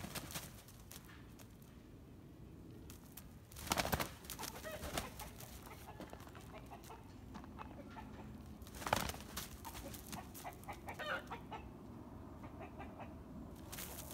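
Two peacock–chicken hybrids sparring: short flurries of wing flapping as they leap at each other, about four seconds in and again about nine seconds in, with brief clucking calls near the end.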